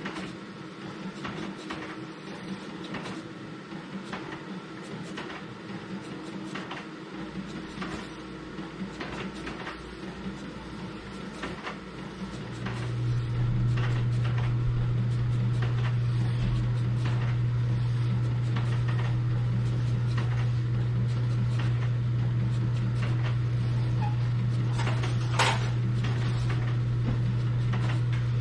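Epson ColorWorks C6500 label printer and an automatic label rewinder running as labels print and wind onto the roll: light ticking over a steady tone, then a loud steady low hum sets in about twelve seconds in and holds. One sharp click comes near the end.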